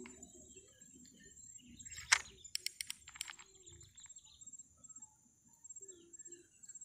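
Crickets chirping in a steady high-pitched pulsing trill. About two seconds in there is one sharp click, then a quick run of four or five more.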